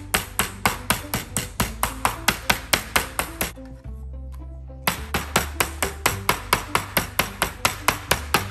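Metal-headed meat tenderizer mallet pounding raw chicken breast on a plastic cutting board: rapid, even strikes about four a second, with a pause of about a second midway before the pounding resumes.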